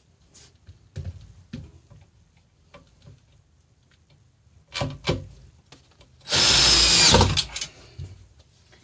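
A few knocks, then a power drill with a Phillips bit runs with a steady whine for about a second, driving a screw into the stool's seat base, and stops.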